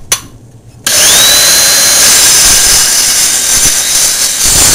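Handheld circular saw switched on, its whine rising briefly as the blade spins up, then running loud and steady as it cuts into a coconut's hard shell, stopping near the end. A sharp click comes just before it starts.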